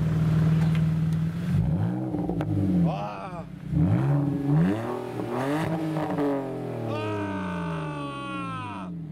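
BMW Z4 engine blipped repeatedly through a straight-through twin-pipe exhaust with no muffler. The note holds steady at first, then rises and falls in a series of revs, and near the end sinks slowly back down.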